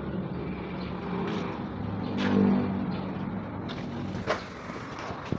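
A motor vehicle's engine running with a steady hum that swells about two seconds in and then eases off, with a few light clicks over it.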